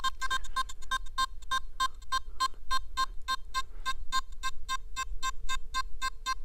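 Nokta Makro Simplex+ metal detector giving its target tone for a 5 g gold wedding ring passed over the coil: a fast, even string of short beeps, about five or six a second. About halfway through the beeps turn thin and faint as the ring moves out toward the edge of its range, about 30 cm.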